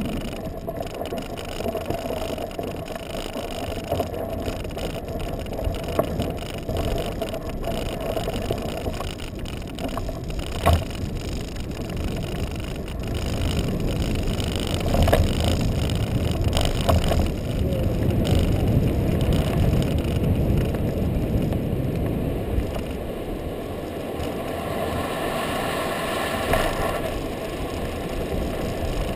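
Libre Vmax kite buggy rolling fast over firm beach sand on fat balloon tyres: a continuous rushing, rumbling noise of tyres and moving air, with a few brief knocks from the buggy, the sharpest about ten seconds in.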